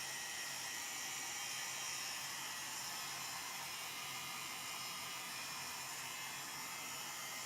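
Handheld heat gun running steadily on a low heat setting, a constant airy hiss over a faint motor hum, as it shrinks plastic shrink wrap.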